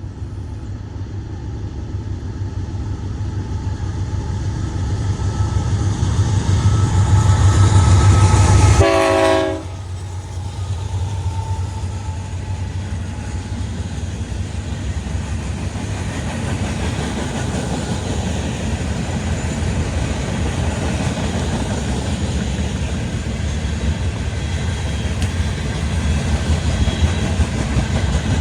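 Diesel freight train passing: the locomotives' engine drone grows louder to a peak about nine seconds in, with a short horn note as the lead units go by. After that comes the steady rumble and clatter of freight cars rolling past.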